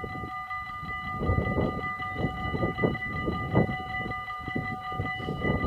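Dutch level-crossing warning bells ringing continuously as the crossing's barriers come down, a steady high-pitched ringing over an irregular low rumble.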